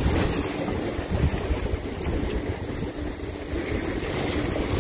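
Wind buffeting the microphone in uneven gusts over a steady wash of water.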